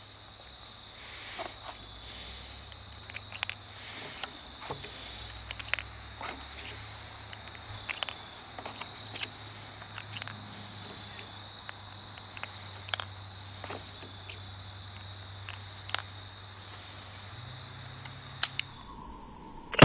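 Crickets trilling steadily, with many scattered sharp clicks and taps over the top.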